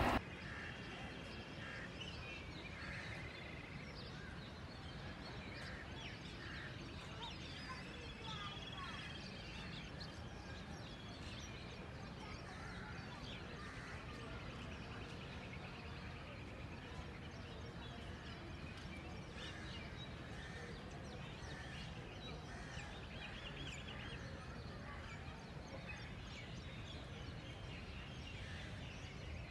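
Faint birds chirping now and then over a low, steady background hum.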